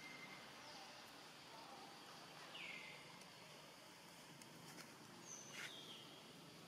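Near silence outdoors: a low steady hiss with a few short, faint bird calls falling in pitch, one about two and a half seconds in and a couple more near the end.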